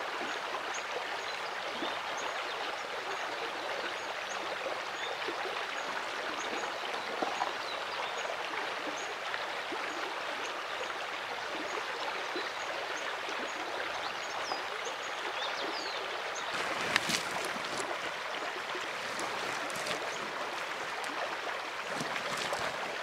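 Small stream running over stones and gravel, a steady rush of water. Near the end there are a few brief sharp clicks.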